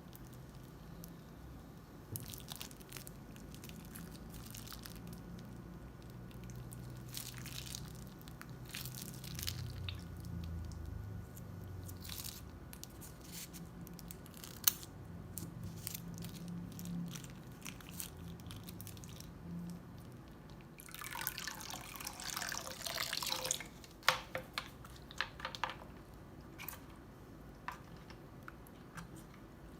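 Slime being squeezed and worked by hand, with scattered wet clicks and pops and a dense stretch of crackling about three-quarters of the way through.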